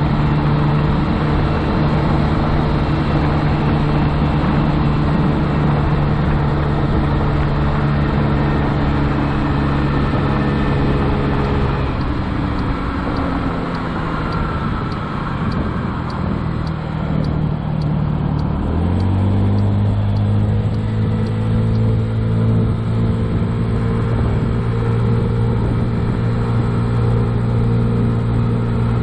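2007 Honda Ruckus scooter's 49cc four-stroke single-cylinder engine running steadily under way. About twelve seconds in, its pitch falls away for several seconds as it eases off. Then it picks up sharply and holds a steady, somewhat lower hum.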